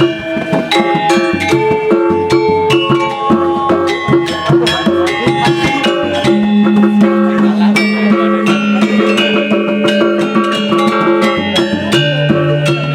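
Balinese gamelan playing fast, dense struck metallic notes over drumming. A low held note comes in about six seconds in and steps down lower near the end.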